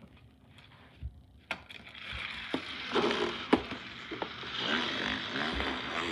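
Plastic toy police car being handled and moved along a carpet, its wheels and body making a steady scraping rustle with a few sharp clicks.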